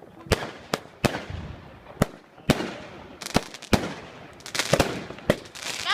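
Fireworks and firecrackers going off: irregular sharp bangs, some with a short echo, and a rapid cluster of bangs about four and a half seconds in.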